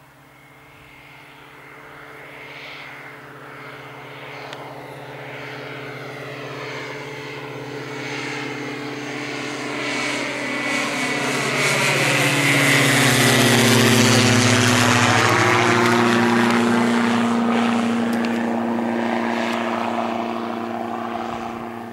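Single-engine light propeller aircraft approaching and passing low overhead. The engine-and-propeller drone grows steadily louder, peaks about two-thirds of the way through, and drops in pitch as the plane goes by.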